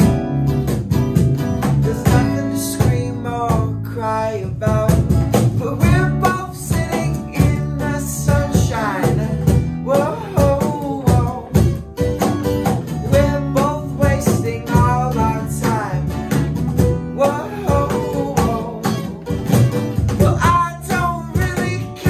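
Live acoustic band playing a song: a man singing lead over two strummed acoustic guitars, an electric bass and a cajón beat.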